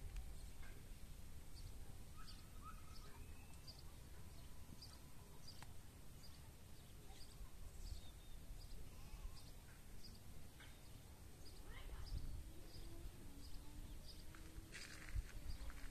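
Quiet rural outdoor ambience: wind rumbling on the microphone, with a bird repeating a short high chirp a little more than once a second and a few other faint calls.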